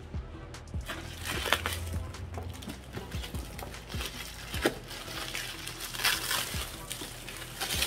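Clear plastic wrapping crinkling and rustling as it is pulled and crumpled off a cardboard box by hand, in several short bursts, the loudest about six seconds in and near the end.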